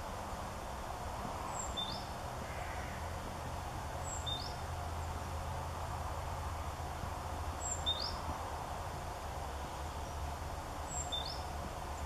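A small songbird repeating a short, high two-note call four times, about every three seconds: a thin note that drops, then a quick upward-sweeping one. A steady low rumble of background noise runs beneath.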